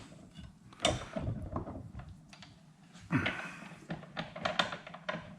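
Light clicks, taps and knocks of small metal fork-valve parts and tools being handled and worked on a bench, irregular, with a louder knock about a second in and another about three seconds in.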